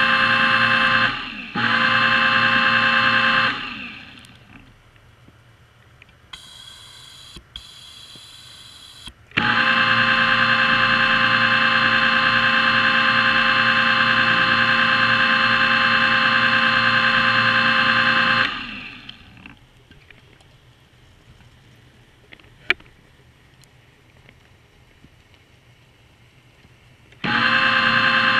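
Underwater diver propulsion scooter's electric motor whining steadily through the GoPro housing, switched on and off: it runs with a brief dropout about a second in, stops after about three seconds, spins back up with a short rising whine at about nine seconds, cuts out again at about eighteen, and starts once more near the end. In the gaps there is only faint water noise, a few seconds of hiss, and one sharp click.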